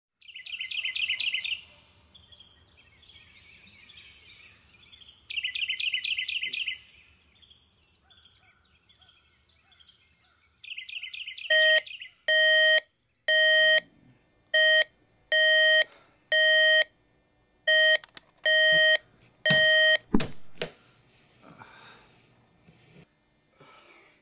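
Birds chirping in short trills over a steady high hum, then a digital alarm clock beeping: about nine loud, evenly pitched beeps at uneven spacing. The beeping ends with a sudden thump, followed by soft rustling.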